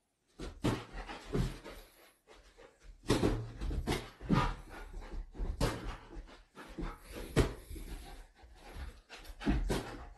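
A poodle panting and moving about, with irregular knocks and rustles. The louder thumps come about three seconds in, then again near the middle and toward the end.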